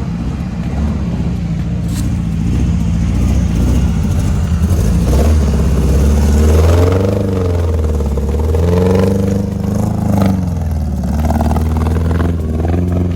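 A vehicle engine running loud under load, revving up and down several times through the middle, its pitch rising and falling in swells.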